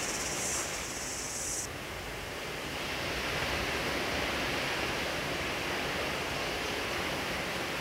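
Steady hiss of background noise, with a brighter, higher hiss over it that stops about a second and a half in.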